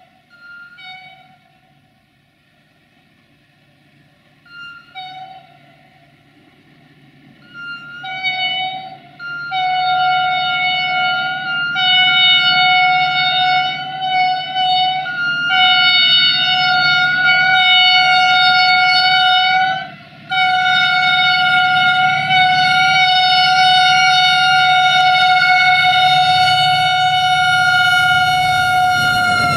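Passenger-train locomotive's horn: a single-pitched horn sounding in a few short blasts while the train is far off, then in long held blasts with brief breaks, growing loud as the train approaches. The pitch drops at the very end as the locomotive passes, over the low rumble of the train.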